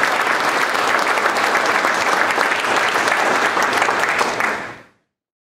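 Audience applauding: many hands clapping in a dense, steady patter that fades out and stops about five seconds in.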